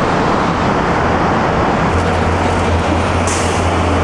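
Roadside traffic noise: a steady rush of vehicles on the highway. About halfway through, a deep engine hum comes in, and a brief hiss sounds near the end.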